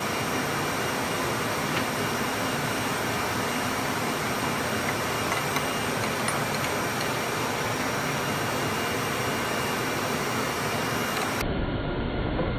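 Steady machine drone with a hiss and a faint hum, even throughout; it turns duller and deeper near the end.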